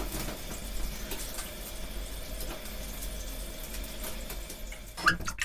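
Water running in a small room, steady, with a few sharp clicks about five seconds in.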